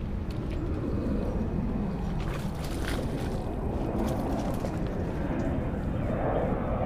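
Steady low outdoor rumble, with a few faint clicks from a spinning reel being cast and cranked in about the middle.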